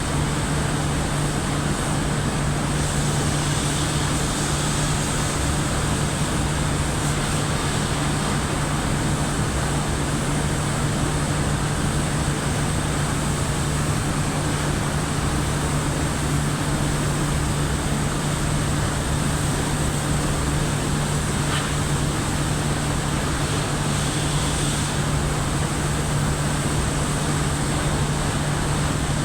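Loud, steady machine noise: a constant low hum under an even hiss that does not change, typical of boiler-plant machinery running.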